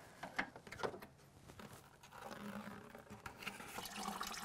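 A few faint clicks and knocks of hands and tools under the car, then from about two seconds in a faint, slowly growing rush of engine coolant running from the radiator drain into a plastic bucket.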